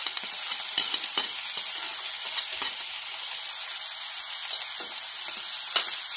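Prawns sizzling in coconut oil in a frying pan: a steady hiss with scattered sharp pops. The loud sizzle comes from a little water left on the boiled prawns.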